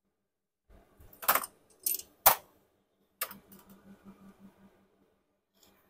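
Small metal engine parts clinking by hand during motorcycle engine disassembly: three sharp clinks about a second in, then another clink followed by a light rattle.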